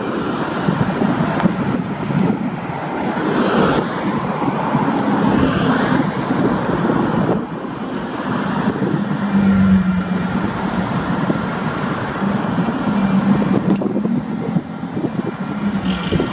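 Freight train of empty log wagons rolling past at a level crossing: a loud, continuous rattling rumble of wagons and wheels on the rails.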